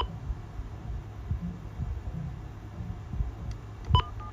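Cordless phone handset keys pressed, each press giving a short click with a brief electronic beep: one at the start and another about four seconds in, as the redial is being tried. A low steady hum and a few soft bumps from handling the handset fill the gap between them.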